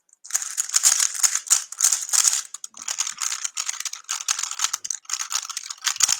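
Rapid, continuous clicking and clacking of a plastic 3x3 speedcube's layers being turned fast.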